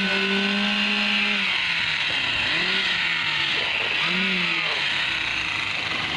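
Concrete poker vibrator running in freshly poured wet concrete: a steady hum over a constant motor hiss. Twice the hum's pitch sags and recovers as the poker is worked into the mix.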